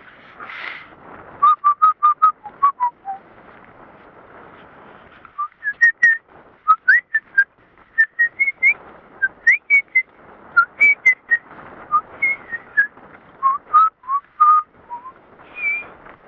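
A person whistling a tune close to the microphone: several phrases of short, quick notes with small slides in pitch, separated by brief pauses.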